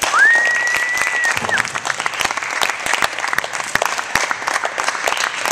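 Audience applauding and clapping after a reading, with one whistle near the start that rises quickly and is held for about a second.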